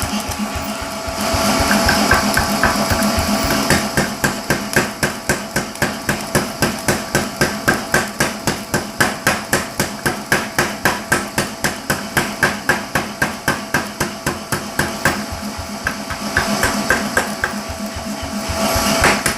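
Hammer blows on extra-hot spring steel being forged into a golok blade, struck in a fast, even rhythm of about three to four blows a second. The blows are lighter and sparser near the start and end. A steady hum runs underneath.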